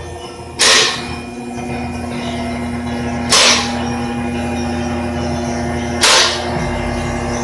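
Background music: a held tone under a sharp whip-like hit that repeats evenly about every two and a half seconds, three times.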